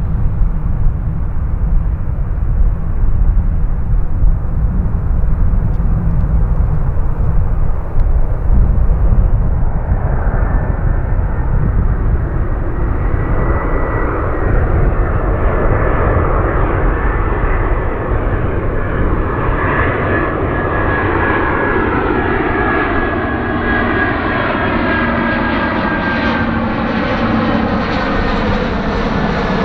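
Jet airliner on approach to land: a low rumble at first, then from about a third of the way in the engines grow louder with a steady whine and a phasing, sweeping sound as the plane comes close overhead.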